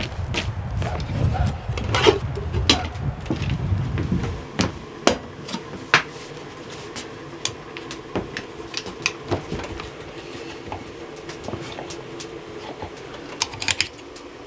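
Wind buffeting the microphone for the first four seconds or so. Then irregular clinks and knocks of kitchen utensils and dishes being handled while food is prepared.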